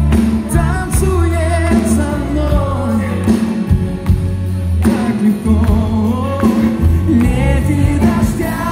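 Live pop band music with singing over a steady bass line.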